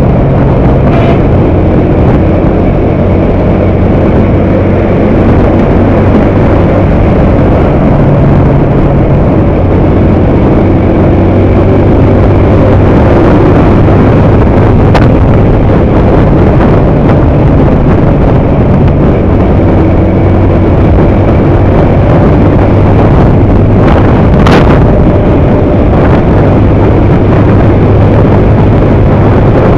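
Motorcycle cruising at about 80 km/h: loud, steady wind rumble on the microphone over the engine's low hum. A brief hiss comes about 25 seconds in.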